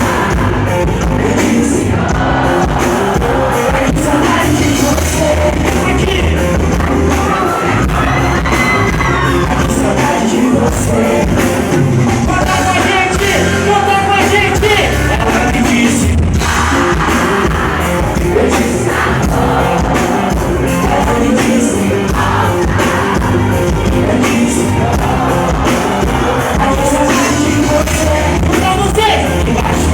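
Loud live pop music with a singer over the band, echoing in a large hall.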